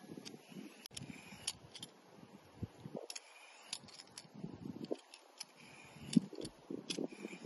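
Hand-held Y-peeler shaving strips of skin off a pale green zucchini: repeated short scraping strokes with many light clicks.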